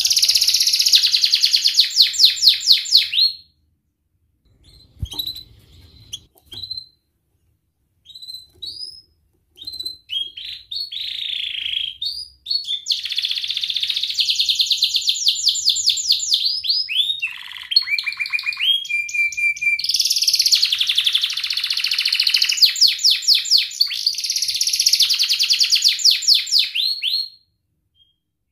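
Domestic canary singing rapid rolling trills of quickly repeated high, sweeping notes. After a brief pause early on come a few scattered chirps, then long unbroken trills that stop shortly before the end.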